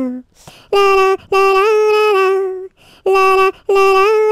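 A single voice singing a simple nursery-rhyme tune on the syllable 'la', in four phrases of held notes with short breaths between them. No accompaniment is heard.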